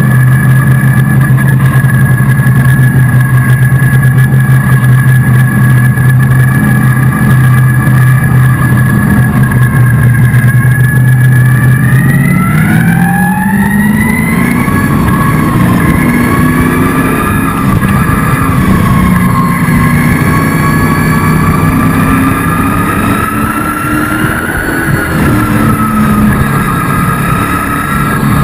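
ASA speed truck's racing engine heard from inside the cab, very loud. It holds a steady note for about the first twelve seconds, then revs up hard with a rising pitch as the truck accelerates, and its pitch then keeps rising and falling under racing throttle.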